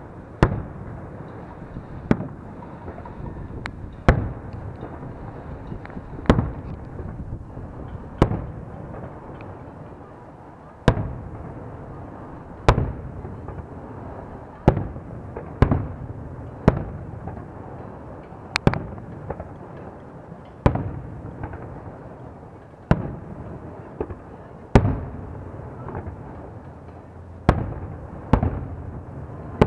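Aerial firework shells bursting in a steady sequence, a sharp bang every one to two seconds, each followed by a rumbling echo.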